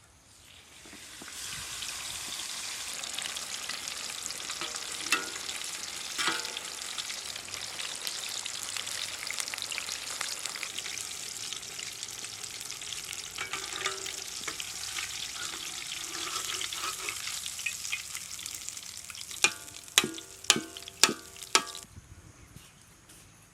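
Chicken frying in a pan of hot oil, a steady sizzle with a utensil scraping and clicking as it is stirred. Near the end come about five sharp, ringing metal knocks on the pan, and then the sizzle stops.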